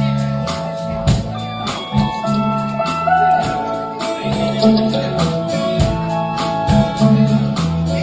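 Live country band playing the instrumental intro of a song: guitars over bass and a steady drum beat, before any singing.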